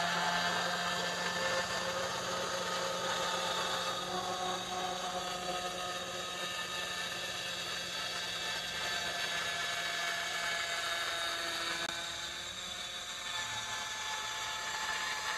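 Kainuo 4003 handheld marble cutter's 110 mm cutting disc running under load, sawing through a glazed ceramic tile: a steady, several-toned whine with grinding, shifting slightly in pitch about twelve seconds in.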